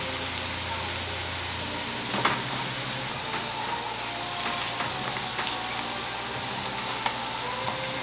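Tofu slabs sizzling steadily as they fry in oil and sauce in a nonstick pan, with a few sharp clicks of a metal spoon against the pan, the loudest about two seconds in.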